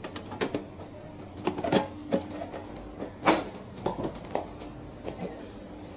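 Irregular clatter of sharp knocks and clicks, about a dozen spread unevenly, the loudest near two seconds in and about three seconds in, over a faint steady hum.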